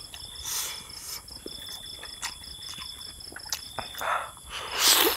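Insects chirring steadily in a high, pulsing trill. Over it come close eating sounds from a man eating frog: short mouth clicks and smacks, and a loud breathy rush near the end.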